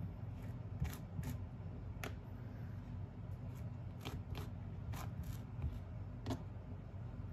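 Table knife scraping butter across a slice of seeded brown bread in short, irregular strokes, over a steady low hum.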